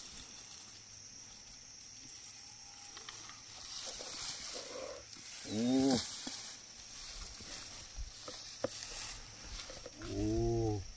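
A cow mooing twice: a short, arching low moo about halfway through and a longer one near the end.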